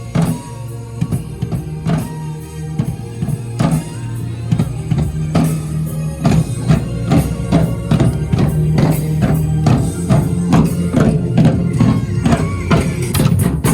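Live drum show: a group of drums beating a fast rhythm over a steady bass backing, the strokes growing denser and louder about six seconds in.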